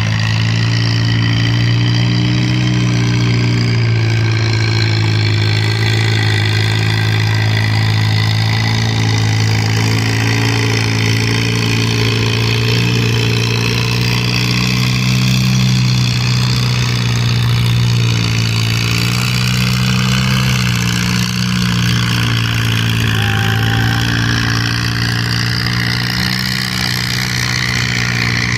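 Farm tractor engine running loudly and steadily while pulling a weight sled, its pitch rising and falling only slightly.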